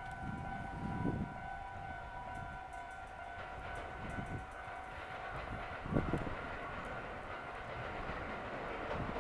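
Railway level crossing warning bell ringing steadily while a train runs past. The train noise grows from about three seconds in, with low thuds at intervals.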